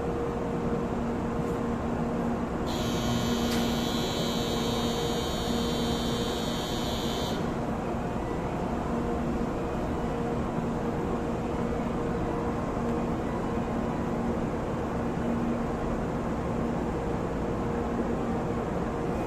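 Steady low hum and noise on a railway station platform. About three seconds in, a shrill buzzer-like ringing tone sounds for about five seconds and cuts off suddenly.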